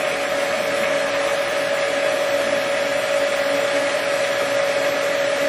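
Monarch 10EE toolroom lathe running on its 5 hp main motor and solid-state inverter drive, spindle turning with the power feed engaged: a steady mechanical hum with one whine held at a constant pitch.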